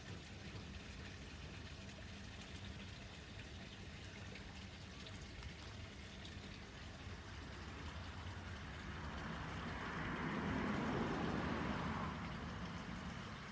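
Steady low outdoor background hum, with a rushing noise that swells up about nine seconds in and dies away near the end.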